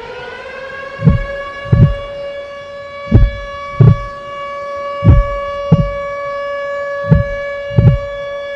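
Heartbeat sound effect, pairs of low thumps about every two seconds, under a siren-like tone that slides up in pitch at the start and then holds steady.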